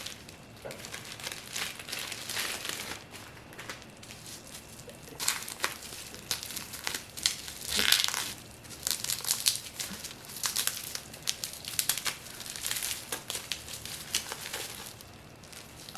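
Packaging wrapping crinkling and crumpling as it is handled, in irregular rustles with a louder stretch about halfway through.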